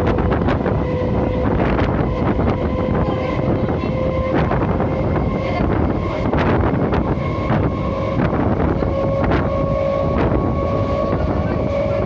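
An old Indian Railways suburban EMU train running, with the whine of its electric traction motors slowly rising in pitch as it gathers speed. Under it are a steady rumble and irregular clicks and knocks of the wheels on the track, with wind buffeting the microphone.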